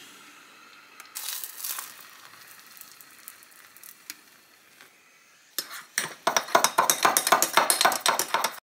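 Hot water pouring into a ceramic mug, then a metal spoon stirring the drink, clinking rapidly against the inside of the mug for about three seconds before stopping suddenly.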